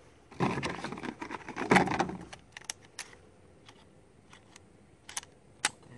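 Shotgun shells being thumbed into the tube magazine of a Browning A-5 Light Twelve semi-auto shotgun: a string of sharp metallic clicks and clacks, busiest and loudest in the first two seconds, then single clicks every second or so.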